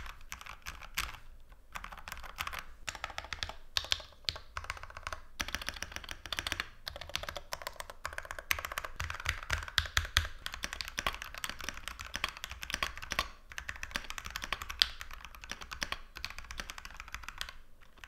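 Steady typing on a custom KBDfans Tofu65 mechanical keyboard with hand-lubed linear switches and a brass plate: a quiet, deep "thocc" keystroke sound rather than a clack or click.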